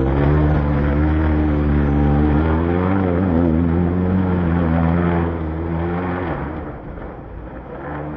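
Rally car engine running hard with a steady droning note that fades after about five seconds.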